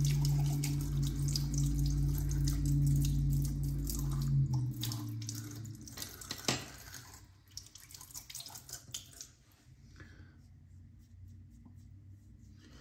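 Bathroom sink tap running while water is splashed onto the face, rinsing off shaving lather after the last pass, with many small splashes. The running water stops about four and a half seconds in, leaving a few drips and splashes and then quiet.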